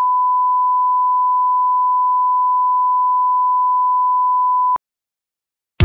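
Steady 1 kHz sine test tone, the reference tone that goes with SMPTE colour bars, held at one pitch and cutting off abruptly near the end.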